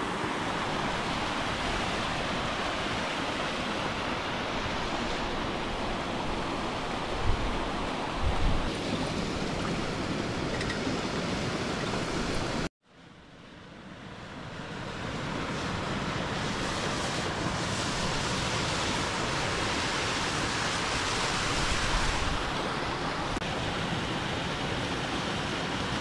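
Steady rush of a mountain stream and small waterfall pouring over rocks. It cuts out abruptly about halfway through, then fades back in over a couple of seconds.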